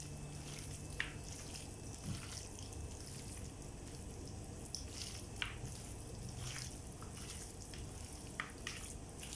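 A hand squishing and turning masala-coated raw chicken pieces in a steel plate: faint wet squelches with a few short, sharp clicks, over a steady low hum.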